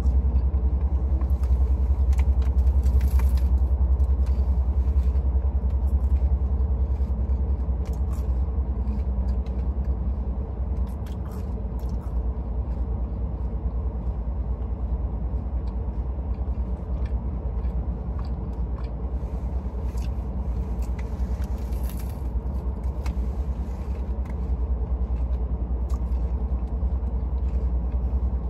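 Steady low rumble of a car's interior, with a faint hum and a few scattered soft clicks.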